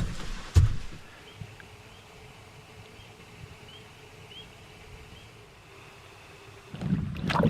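Quiet wilderness ambience: a faint steady insect hum and a few short, high rising bird chirps. A single knock about half a second in, and low rushing noise rising near the end.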